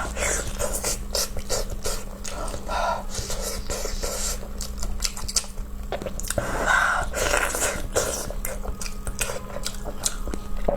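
Wet chewing and lip-smacking close to the microphone, with many sharp mouth clicks, as someone eats soft, sauced meat (pig brain and pork stomach).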